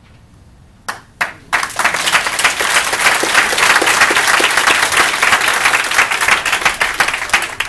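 Audience applause: two lone claps about a second in, then the whole room breaks into loud, dense clapping that thins out near the end.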